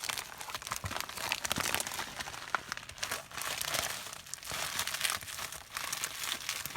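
Packaging being handled as a parcel is opened: a continuous run of crinkling and rustling, with many small sharp crackles.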